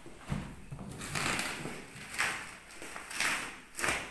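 Clear plastic stretch wrap rustling and crinkling as taped cardboard boxes are unwrapped and shifted on a floor mat, in about five short noisy bursts, with a low thud about a third of a second in.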